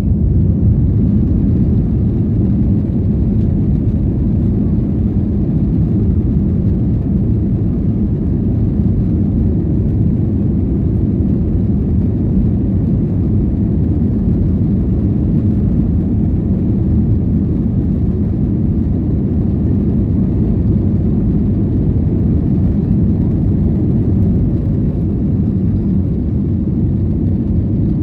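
Airbus A321 heard from inside the cabin on its takeoff roll: jet engines at takeoff power with the rumble of the wheels on the runway. It is a steady, loud, low rumble.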